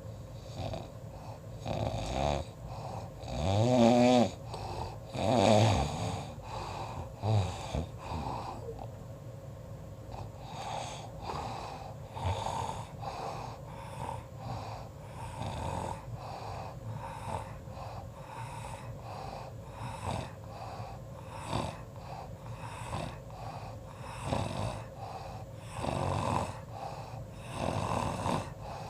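Snoring. A few loud, pitched snores in the first several seconds give way to a fast run of short, quieter breaths, with two louder snores again near the end.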